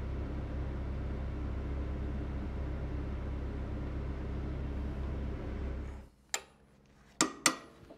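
John Deere 85G excavator's diesel engine running steadily as the hydraulics roll the quick coupler forward; it stops abruptly about six seconds in. Then a light knock and two sharp, ringing hammer blows on a steel punch at the coupler pin, about a third of a second apart.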